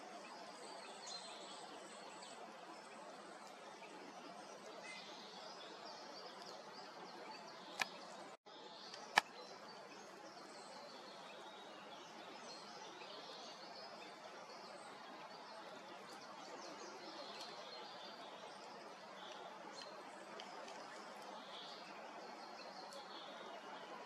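Forest ambience: a steady low hiss with scattered faint chirps and calls of small songbirds, and two sharp clicks about eight and nine seconds in.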